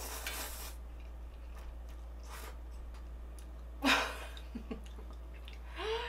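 A person slurping a forkful of spicy instant noodles, then breathing out hard through an open mouth twice, the reaction to the chili burn. A steady low hum runs underneath.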